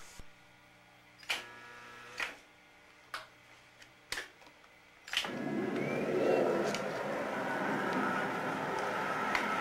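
Five sharp clicks about a second apart, then about five seconds in a flatbed film editing table starts running with a sudden, steady mechanical noise.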